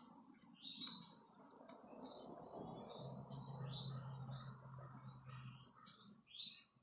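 Faint chirps of small birds, many short calls scattered throughout, with a low steady hum for a couple of seconds in the middle.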